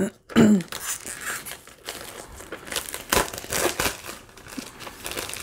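Plastic shrink-wrap being cut and peeled off a cardboard box of paint pens, crinkling and tearing in irregular bursts.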